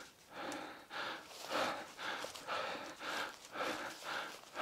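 A person breathing hard and fast close to the microphone, with quick in-and-out breaths at about two to three a second and no pause between them.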